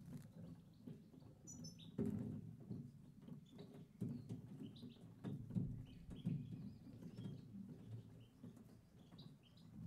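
European goldfinches giving short, scattered chirping calls, with several sharp knocks and flutters as the birds hop and flap about their perches.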